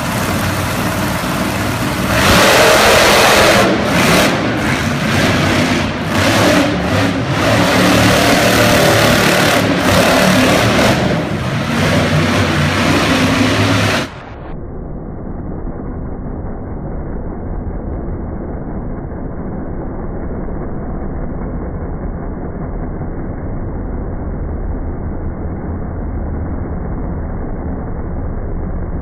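Bigfoot monster truck's engine revving and surging as it manoeuvres. About halfway through, the sound turns muffled, with the treble cut off, and settles into a steadier rumble.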